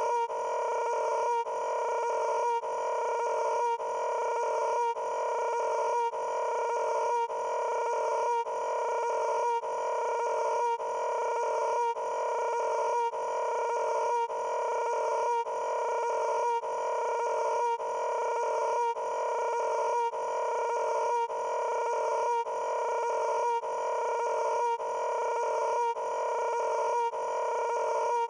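A short pitched sound looped over and over, restarting about once every second, each repeat swelling slightly before it cuts off.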